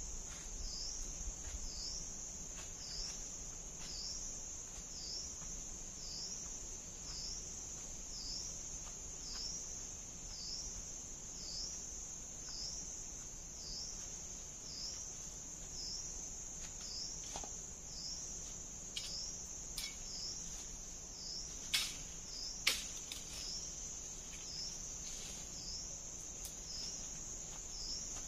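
Steady high-pitched buzzing of insects, pulsing with a short downward dip about every three-quarters of a second. Two sharp snaps stand out about two-thirds of the way through.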